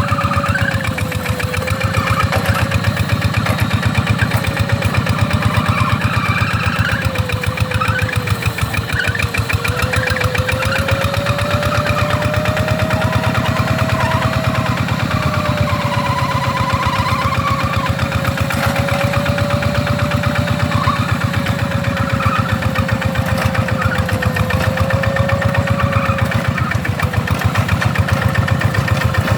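Two-wheel hand tractor's diesel engine running steadily, with a fast, even chugging. A faint whine drifts slowly up and down in pitch over it.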